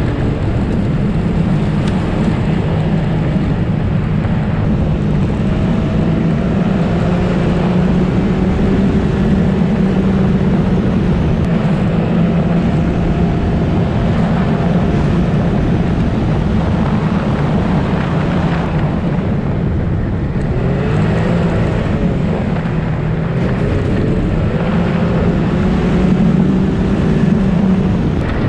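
Side-by-side off-road vehicle's engine running steadily under way on a gravel road, its note rising and falling a little with the throttle, over constant wind and tyre-on-gravel noise.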